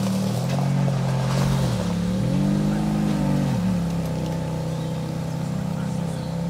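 Sports car engine revving as the car pulls away: the pitch climbs twice and drops back each time, then the engine runs steadily at a lower pitch.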